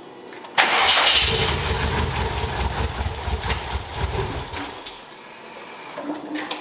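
Freshly installed Subaru WRX turbocharged flat-four started for the first time: it fires with a sudden loud burst about half a second in and runs with a heavy pulsing rumble for about four seconds, then falls away about five seconds in.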